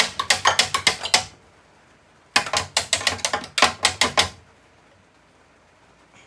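Socket ratchet wrench clicking in two quick runs of sharp clicks, about seven a second, the second run starting a couple of seconds in. The ratchet is one its user calls broken, ratcheting without getting the stuck part off.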